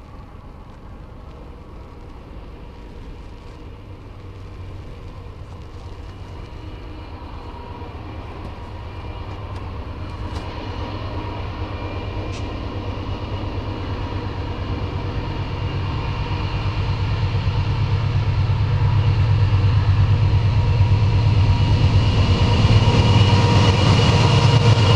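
Freight train led by National Rail NR class diesel locomotives, with Westrail Q and L class units behind, approaching and growing steadily louder. The engines give a steady low drone that builds as the train draws near.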